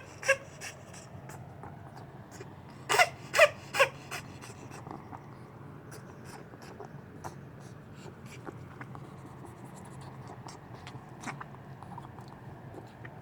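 A ferret's coughing attack: one quick hack just after the start, then three sharp coughs in quick succession about three seconds in, followed by several seconds of heavy breathing with small clicks over a low steady hum. The owner calls it a recurring choking cough that is not a cold cough.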